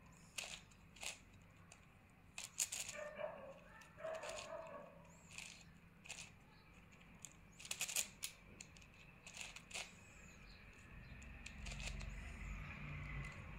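Plastic 9x9 puzzle cube's layers being turned by hand: scattered, irregular clicks and clacks, some in quick clusters. A low rumble comes up near the end.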